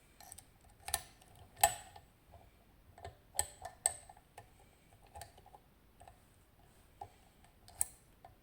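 Sharp metallic clicks and taps as an Abloy Sentry disk-detainer padlock and its picking tools are handled, about ten scattered clicks, the loudest about one and a half seconds in.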